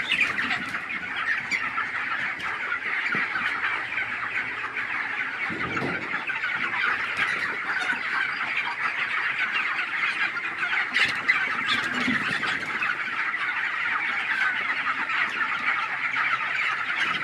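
Large flock of chickens clucking and calling over one another in a dense, steady chorus.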